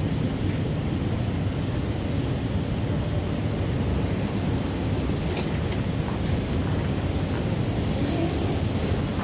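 Steady low rumbling noise of wind buffeting the microphone, with a couple of faint clicks about halfway through.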